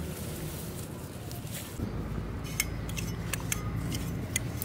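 Cleaver blade cutting through lemongrass stalks: a handful of short, sharp snicks from about halfway in, over a low steady hum.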